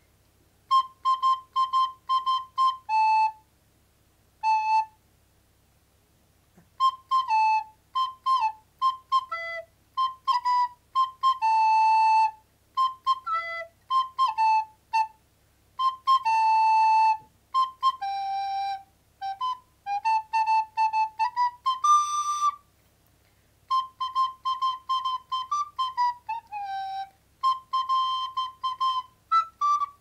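Soprano recorder played slowly and unevenly: short phrases of quick repeated notes on much the same pitch, with a few steps down and up, broken by pauses between phrases. One brighter, higher note sounds about two-thirds of the way through.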